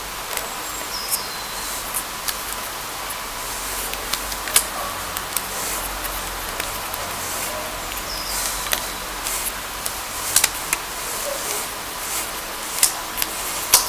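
Irregular small clicks and ticks of wooden craft sticks and a rubber band being handled and wound around them, over a steady background hiss.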